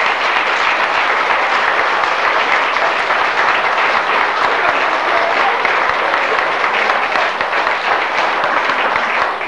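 A roomful of adults and children applauding, a dense and even clapping.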